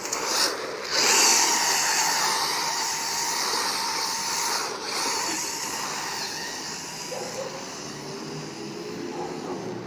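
Electric 1/10-scale 4WD RC buggy with a brushless motor running at speed: motor whine and tyres scrabbling on gritty, dusty asphalt as it slides past close by, then fading as it drives away.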